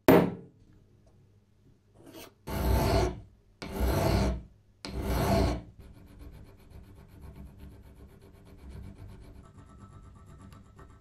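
A centre punch struck once on a copper strip, a single sharp tap. Then three slow, loud strokes of a metal file across the end of the copper strip held in a vise, followed by quieter, quicker rasping of fine filing.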